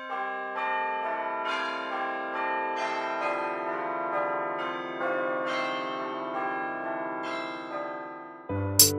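Bells chiming: one clear note struck after another, each ringing on and overlapping the next. The chiming cuts off abruptly near the end.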